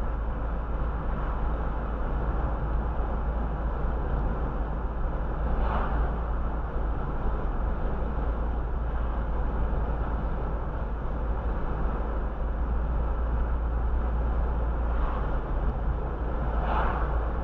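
Steady road and tyre noise heard from inside a moving car, mostly a deep rumble. Two brief whooshes of passing traffic, about six seconds in and near the end, the second from an oncoming car going by.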